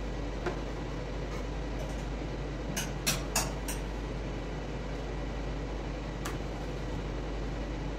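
Steady machine hum, like a ventilation fan, with a few light clicks and knocks as a plastic transfer hose is handled, most of them in a quick run of three or four around three seconds in.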